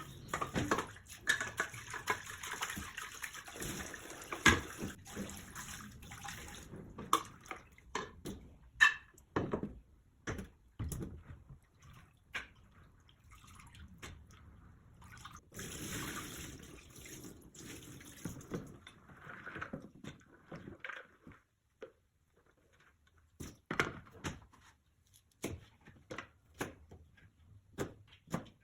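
Kitchen sink tap running in two spells, the first for about six seconds and the second about halfway through, with scattered knocks and clinks of dishes or utensils in between and after.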